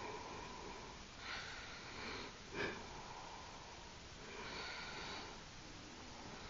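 A person breathing close to the microphone: two slow, breathy exhalations about three seconds apart, with a brief sharp nasal sound between them, the loudest moment of the stretch.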